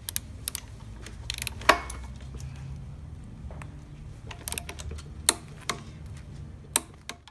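Torque wrench with a 19 mm socket ratcheting as it tightens the S2000 crank bolt: scattered sharp clicks, three of them much louder than the rest, over a steady low hum.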